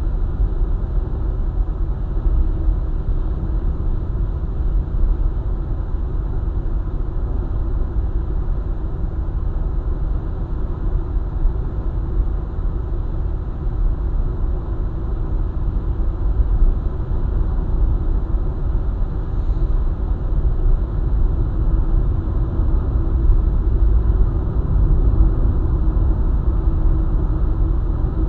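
Car driving along a highway at steady speed: a continuous low rumble of road, tyre and engine noise.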